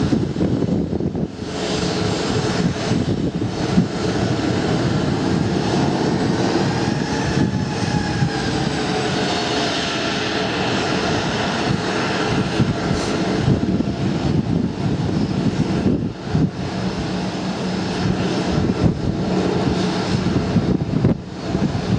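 Airliner's engines on approach to land: a steady rumble of engine noise, with a whine that rises and then falls in pitch midway.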